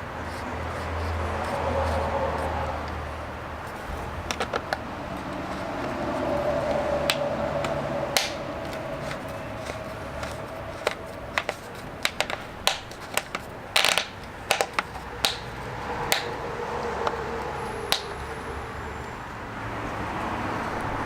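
Small hard parts of a USB outlet being handled and unscrewed by hand: scattered sharp clicks and light taps, thickest in the second half, over a steady low hum.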